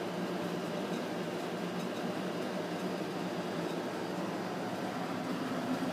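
Steady room noise: an even hum and hiss with no distinct event.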